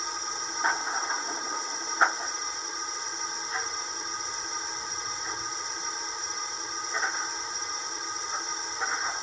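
Model steam locomotive's sound system playing a steady steam hiss over a few steady tones, with a few soft knocks at irregular intervals.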